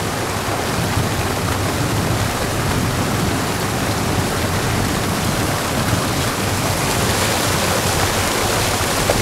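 Seawater surging and foaming among rocks, a steady rushing hiss.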